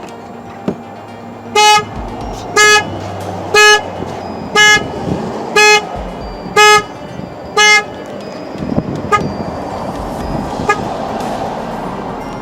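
2003 Saturn Vue's horn honking in the pulsing pattern of its anti-theft alarm: seven loud honks about a second apart, then a few much fainter short chirps. The alarm is going off on its own, a fault the car has.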